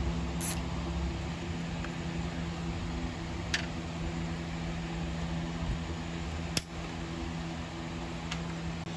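Steady low hum, with a few sharp clicks as a plastic zip tie is tightened around the wiring harness and its tail is snipped off with diagonal cutters.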